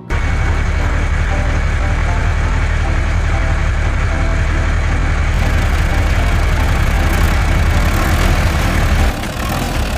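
Engine running steadily with a deep rumble. It starts abruptly and cuts off about nine seconds in.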